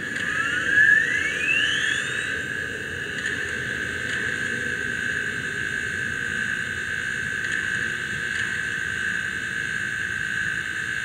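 N scale model steam locomotive giving off a steady high-pitched whine, with a second whine rising in pitch over about the first two seconds.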